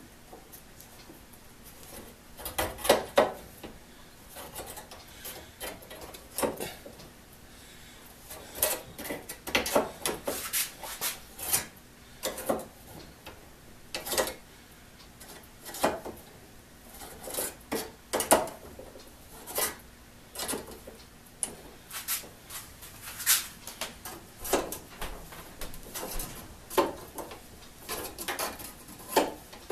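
Plier-type saw set squeezed onto the teeth of a one-man crosscut saw, tooth after tooth, setting them: sharp metallic clicks and clinks of steel on steel, irregular at about one or two a second, starting a couple of seconds in.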